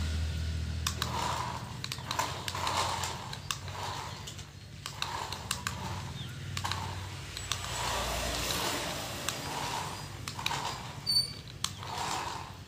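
Toy remote-control cars running on a concrete floor: scattered light clicks and rattles from their small plastic wheels and bodies, with soft repeated tones at irregular intervals of roughly half a second.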